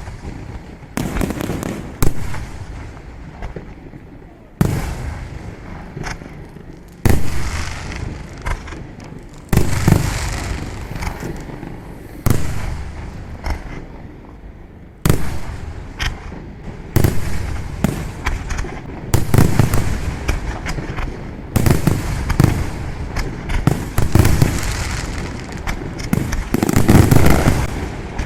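Aerial fireworks shells bursting in a display: a run of sharp, loud bangs every one to three seconds, each trailing off in a lingering rumble, with the bursts crowding closer together near the end.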